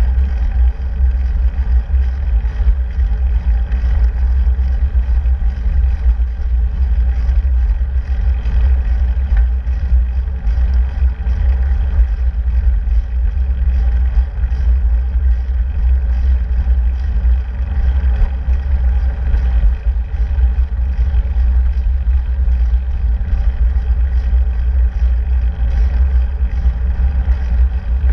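Steady, deep wind rumble buffeting a bicycle-mounted camera's microphone while riding, mixed with road noise and car traffic.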